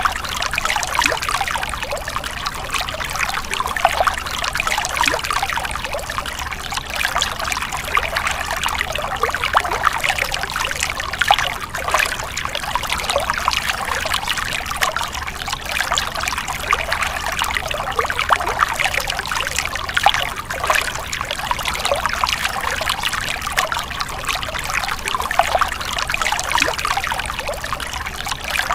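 Stream water splashing and trickling over stones: a steady, busy babble with many small irregular splashes.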